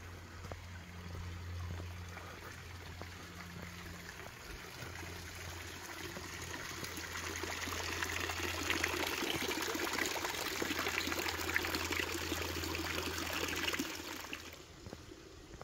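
Running water of a forest stream, a steady rushing that grows louder midway and drops away near the end.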